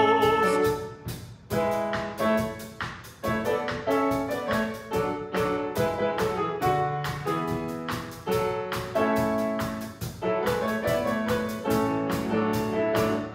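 Piano and drum kit playing an instrumental passage of a worship song: piano chords under a steady beat of cymbal and drum strokes.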